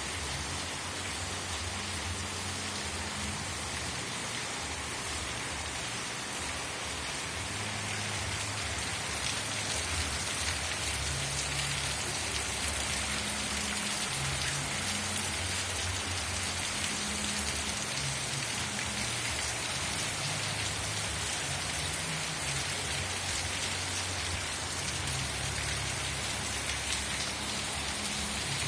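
Steady rain falling, an even hiss with an uneven low rumble underneath, getting a little heavier about eight seconds in.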